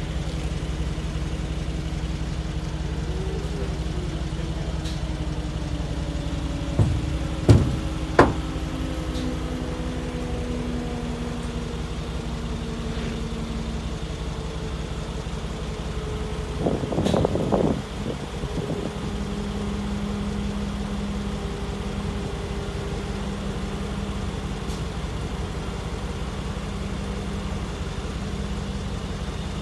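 Vehicle engine idling steadily, with a few slowly gliding mechanical tones over it. Sharp knocks come about seven to eight seconds in, and a short clatter comes around the middle.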